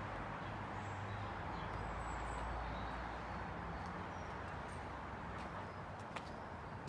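Steady outdoor background rush with a few faint, short, high bird chirps scattered through it, and a single sharp click about six seconds in.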